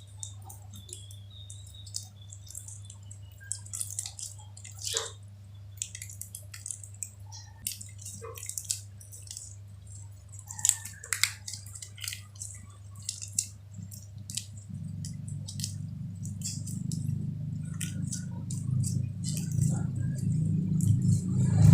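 Slime being squeezed and stretched by hand, with many small wet, sticky clicks and pops. About two-thirds of the way in, a low rumbling handling noise joins them and swells toward the end.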